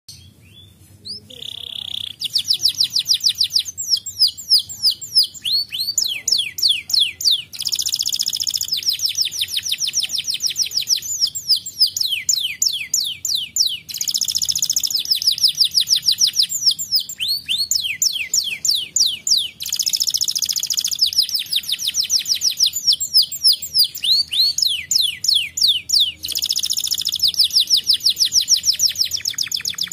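Canary singing a long, fast song of rapid trills and rolls. It opens about a second in with a short held whistle, and dense rolling passages come back every five or six seconds.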